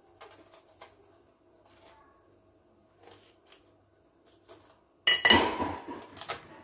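A kitchen knife scoring and cutting into a pomegranate's rind over a ceramic plate, with light clicks and scrapes. About five seconds in comes a sudden, much louder clatter and crackle that lasts about a second and a half, as the pomegranate is pulled apart by hand.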